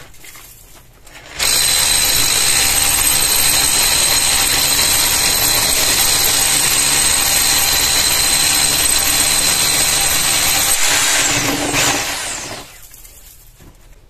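Electric hammer drill with a long bit boring into a brick wall: it starts about a second and a half in and runs steadily with a high whine, then the motor spins down near the end.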